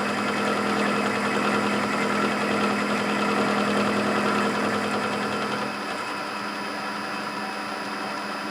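Clausing 8520 vertical milling machine running, its cutter taking a cut across a T-nut to mill a flat: a steady mechanical hum with a constant whine, easing a little about six seconds in.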